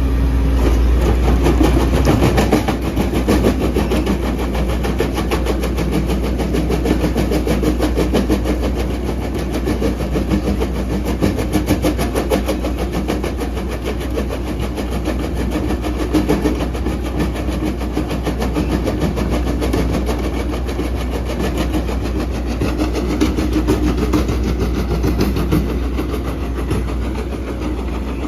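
Volvo EC210DL excavator's diesel engine running steadily with a heavy, even rumble.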